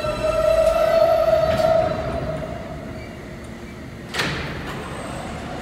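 New York City subway train moving out along the platform, with a steady whine that is loudest in the first two seconds and then fades as the cars roll past. A single sharp clunk about four seconds in.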